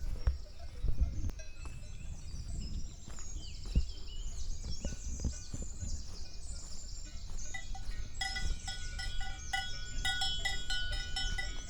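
Several livestock bells clanking irregularly, starting about two-thirds of the way in, over high chirping birdsong and a low rumble.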